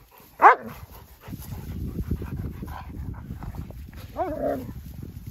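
Saarloos wolfdogs play-fighting: one gives a short, loud yelp falling in pitch about half a second in, then rough low scuffling noise runs on, and a second, longer wavering yelp comes about four seconds in.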